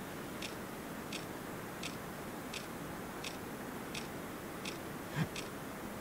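Camera shutter clicking faintly at a steady pace, about one click every 0.7 seconds, with a soft low thump near the end.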